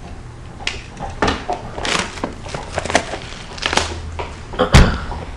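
Trading-card box and pack being opened by hand: irregular rustling, crinkling and scraping of cardboard and wrapper, with one loud thump near the end.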